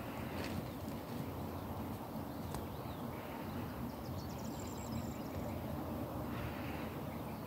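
Outdoor background noise: a steady low rumble, with a faint high chirping trill about four seconds in.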